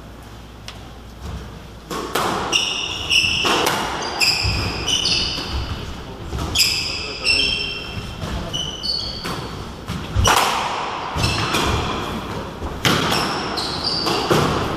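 A squash rally: the ball cracks off racket and walls again and again, while court shoes squeak in short high chirps on the wooden floor. The hits echo in the enclosed court. The rally gets going about two seconds in.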